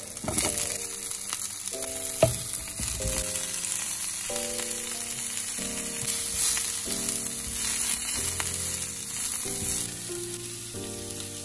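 Broccoli florets sizzling as they stir-fry in oil in a nonstick frying pan, with a wooden spatula knocking and scraping against the pan as they are turned; the sizzle dies down near the end. Background music plays underneath.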